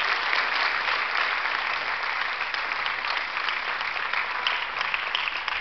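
Theatre audience applauding, a dense patter of many hands clapping that gradually thins and fades toward the end.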